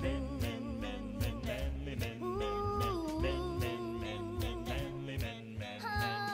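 Background music with singing over a steady beat, ending in a held chord.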